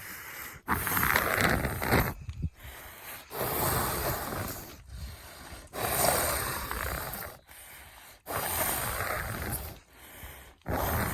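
A cow breathing heavily and snorting close to the microphone: noisy breaths of a second or so each, one every two seconds or so, with short pauses between them.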